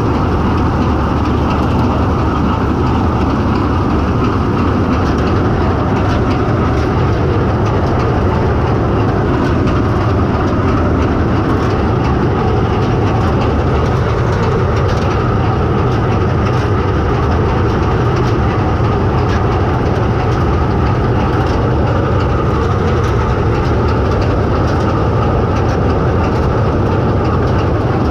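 Bizon Z056 combine harvester running while cutting triticale: engine and threshing machinery making a loud, continuous mechanical noise that holds steady throughout.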